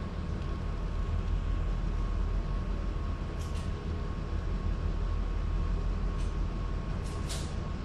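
Steady low hum and hiss with a faint steady high tone, and a few faint ticks.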